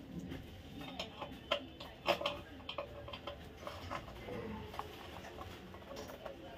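Irregular light metallic clicks and taps of pliers working at the end terminal of a room heater's tubular heating rod, loosening its fixing screw to remove the rod.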